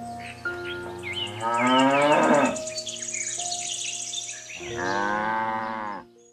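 Cow mooing twice: one moo about a second and a half in and another near the end, each falling in pitch as it ends. Short high chirps and a steady background tone sound underneath.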